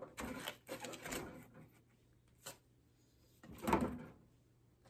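Items being packed back into a cardboard gift box: soft rustling and light knocks, a small click about two and a half seconds in, then a louder knock near the end.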